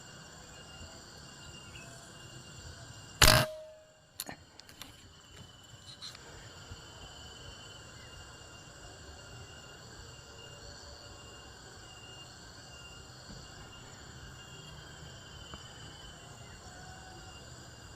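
A single PCP air rifle shot about three seconds in: one sharp crack with a brief ring, followed by a few small clicks. Insects chirr steadily throughout.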